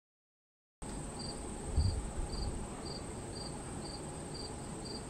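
Insects calling: a steady high buzz with a second, pulsed chirp repeating about twice a second. The sound cuts in suddenly about a second in, and a brief low rumble near two seconds in is the loudest moment.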